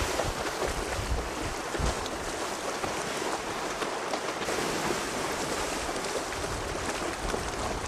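Outdoor wind and sea wash over choppy water: a steady hiss with occasional low wind buffets on the microphone, one about two seconds in.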